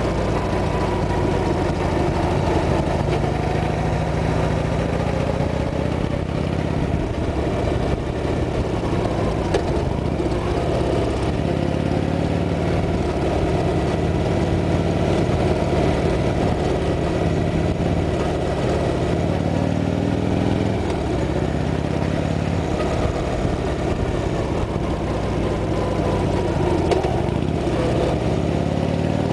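Harley-Davidson Sportster's air-cooled V-twin engine running under way, heard from the rider's seat. Its pitch shifts as the revs change a few times and climbs near the end.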